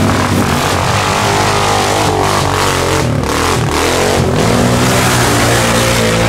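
4WD ATV engines running and revving in deep mud; the revs rise and fall in the middle, then hold steady.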